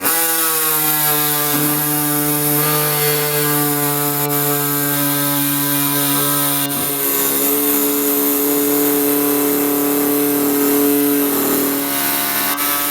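Pneumatic air saw running steadily as it cuts through the bull bar, a constant pitched buzz that starts abruptly and wavers briefly near the end.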